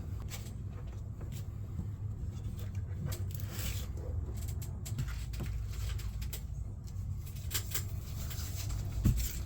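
Scrap electrical cords and wire being handled and sorted in a bucket: scattered light clicks, scrapes and rustles over a steady low rumble.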